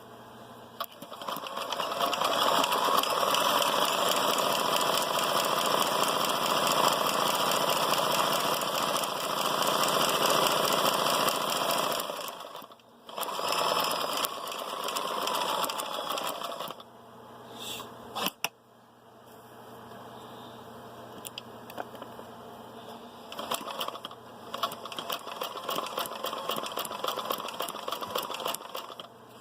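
Kenmore 158.10400 sewing machine stitching at speed, running steadily for about twelve seconds, pausing briefly, then running again. After a sharp click past the middle it runs more slowly and quietly, with a quick patter of stitch ticks.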